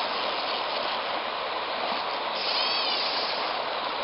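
River water rushing steadily over shallow riffles and rocks, an even hiss with no break. A brief faint high chirp sounds about two and a half seconds in.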